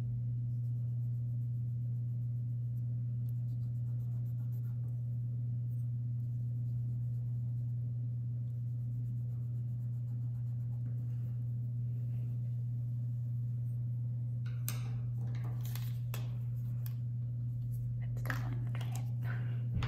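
Pencil shading on paper, faint scratchy strokes over a steady low hum. From about three-quarters of the way through, a run of clicks and rustles as a POSCA paint marker is picked up and its cap pulled off.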